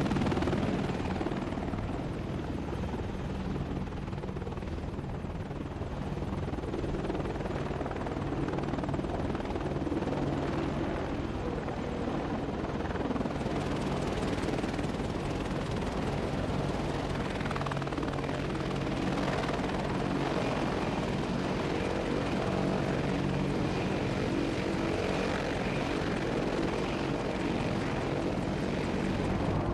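AH-64 Apache attack helicopters running on the ground: a steady drone of main rotor and twin turboshaft engines.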